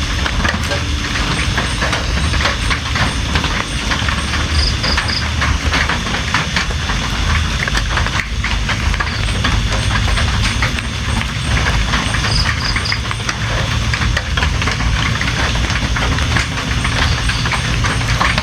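Steady heavy rain: a dense patter of countless drop ticks over a deep, continuous low din. A short high three-note chirp comes twice, about eight seconds apart.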